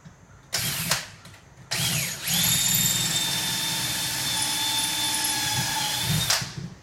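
Electric drill with a 3/16-inch bit boring a screw hole for a knob through a cabinet door, guided by a wooden jig. The trigger is blipped briefly about half a second in. The motor then spins up with a rising whine and runs steadily for about four seconds before stopping near the end.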